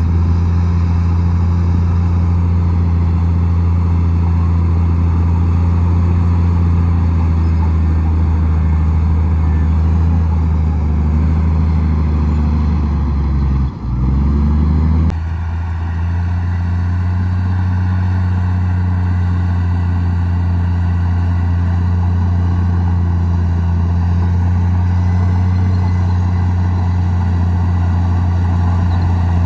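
Komatsu D58E bulldozer's diesel engine running steadily under load, with a strong low drone. Just before halfway the engine note dips briefly and climbs back, then it runs on steadily.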